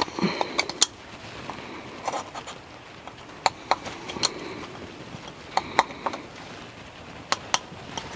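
Gloved hands working the old o-ring off a 2013 Chevy Trax's oil filter housing cap: light scraping and rubbing, broken by sharp clicks that often come in pairs.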